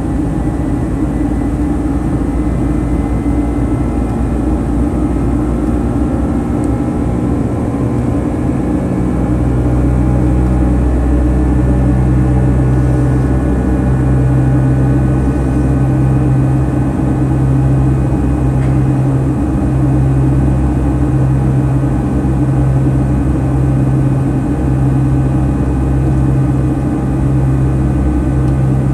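Boeing 757-200 cabin noise in the climb after takeoff: a steady, loud drone of jet engines and airflow, with a few faint engine tones drifting slowly in pitch. The low rumble grows heavier about nine seconds in.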